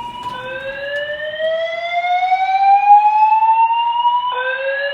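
Fire alarm evacuation tone sounding over the floor's speakers after being switched on at the control panel for a test: a rising sweep that climbs for about four seconds, drops back abruptly near the end, and starts climbing again.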